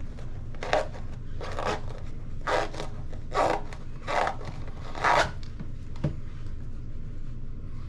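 Hands rubbing and squeezing soft rubber RC crawler tires: six short rubbing strokes about one a second, then a faint knock.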